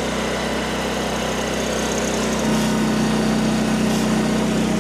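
An engine running steadily at an even speed, a little louder about halfway through.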